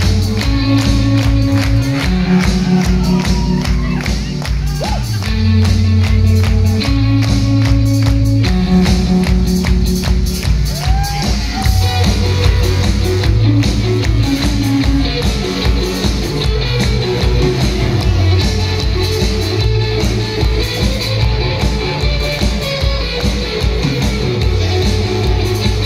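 Rock band playing live through a venue PA, heard from the crowd: drums keeping a steady driving beat under held bass notes and electric guitar.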